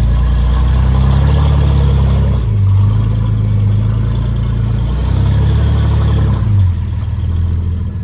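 Off-road vehicle engine running loud under varying throttle, its note stepping up and down several times, around two and a half, five and six and a half seconds in.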